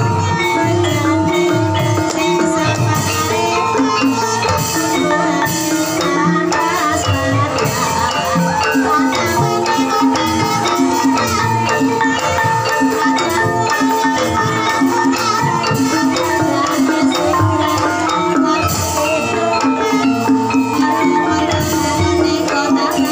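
Live Javanese gamelan music of the kind played for an ebeg horse dance: brass bonang kettle gongs ringing in a repeating pattern over drums, keeping a steady beat throughout.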